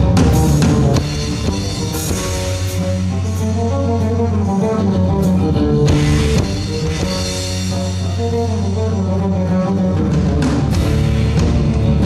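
Live fusion-rock band music: a drum kit with cymbal crashes and bass drum over sustained bass and guitar notes. It drops a little in loudness about a second in.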